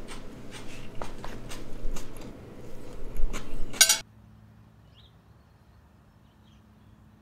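Cutlery clicking and scraping against a ceramic plate: a string of sharp clicks, then a longer scrape just before the sound cuts off about four seconds in, leaving only a faint, quiet background.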